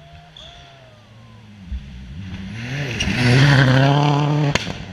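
Rally car approaching at speed on a gravel stage, its engine note rising and growing louder until it passes close about three to four seconds in. A single sharp crack sounds near the end as it goes by.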